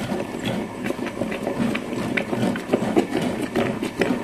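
Tabletop stone wet grinder running, its steel drum turning against the stone rollers as it churns soaked urad dal into fluffy idli batter, which has been ground for about fifteen minutes. A steady mechanical running with scattered light clicks and knocks.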